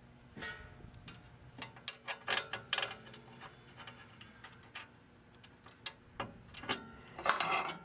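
Ratchet wrench clicking in short runs with scattered metallic clinks of hand tools and steel parts while the upper control arm is bolted back onto the spindle. There is a short clatter near the end.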